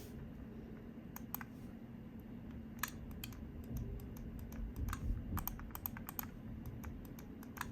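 Razer Viper V2 Pro gaming mouse buttons clicking, pressed one at a time and then in quick runs. The reassembled mouse's repaired switches are being tested with the shell back on.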